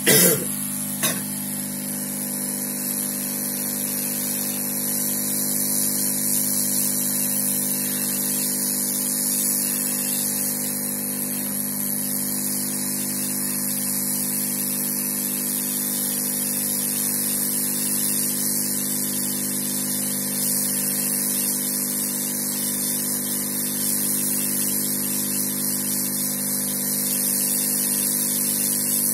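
Hot-air rework station blowing steadily, a constant airy hiss over the hum of its blower motor, while a component is being heated off the motherboard. A couple of short clicks come right at the start, about a second apart.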